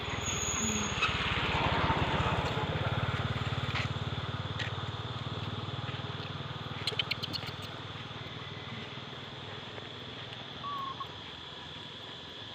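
A small engine running, loudest about two seconds in and then fading away over the next several seconds, with a steady high-pitched tone behind it and a brief run of clicks about seven seconds in.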